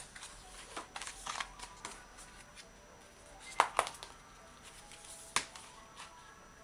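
Paper pages of a softcover catalog rustling and sliding under the hands as it is leafed through, closed and turned over on a table. Two sharp taps come just past halfway as the catalog is shut down onto the table, and one more about a second and a half later as it is flipped onto its front cover.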